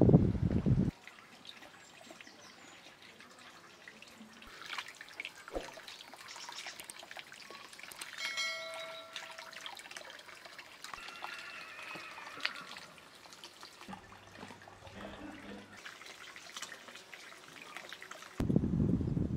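Quiet trickle of water from a tap over tomatoes and cucumbers being rinsed by hand into a bowl of water, with small splashes and clicks. A brief steady tone sounds about eight seconds in. Wind rushes on the microphone in the first second and again near the end.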